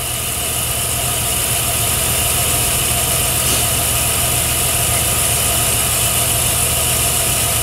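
Metal lathe spindle running at about 400 RPM with the power feed engaged, the tool taking a light cleanup cut on a steel bar: a steady hum of motor and gearing with a high cutting hiss over it, growing a little louder over the first couple of seconds.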